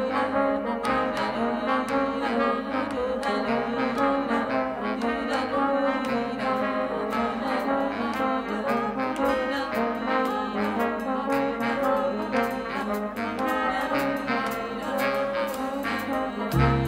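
Background music with a brass section and a steady beat; heavier bass notes come in at the very end.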